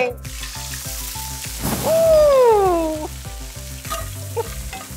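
Food sizzling in a hot frying pan on a gas burner as liquid is poured in and flambéed. About two seconds in, a loud pitched tone slides slowly down over a second or so, over background music with a bass line.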